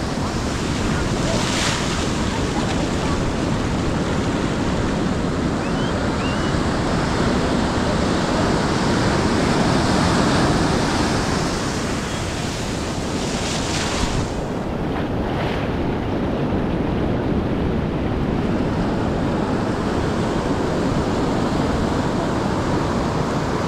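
Ocean surf washing and breaking on the beach in a steady rush, with wind buffeting the microphone.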